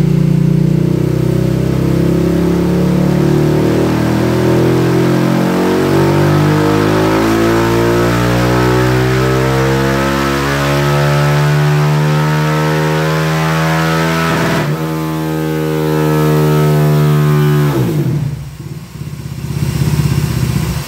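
Yamaha YFZ450R single-cylinder four-stroke engine in a Formula SAE car, revving up steadily under load on a chassis dyno. The pitch climbs evenly for about fifteen seconds, breaks abruptly, runs on a few seconds more, then the revs fall away sharply about eighteen seconds in.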